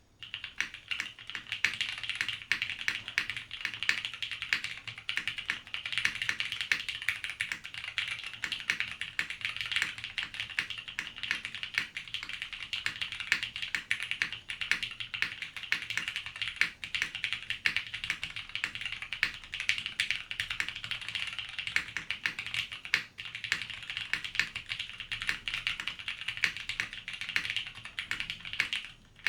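Continuous fast typing on a mechanical keyboard: a LifeZone LZ REs TKL with lubed and filmed vintage Cherry MX Brown switches on a polycarbonate plate, under BSP keycaps. There is a brief pause about two-thirds of the way through, and the typing stops just before the end.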